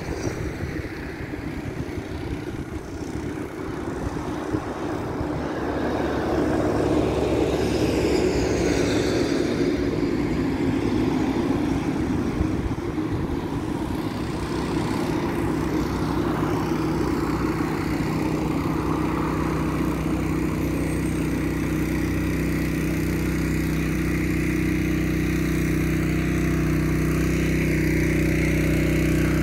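Gusty wind rumbling on the microphone, then a vehicle engine running steadily from about halfway through, its hum rising a little toward the end.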